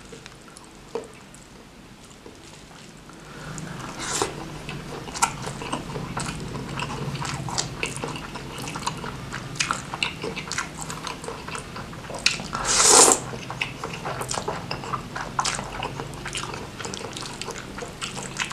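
Close-miked chewing of a mouthful of rice and Samyang spicy noodles: wet clicking and smacking mouth sounds start a few seconds in and run on densely. About two-thirds of the way through comes one loud, noisy slurp of noodles.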